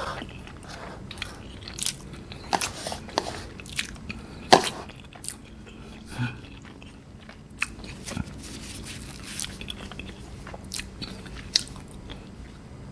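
Close-miked chewing of a mouthful of instant noodles: wet mouth smacks and clicks at irregular intervals, the loudest about four and a half seconds in.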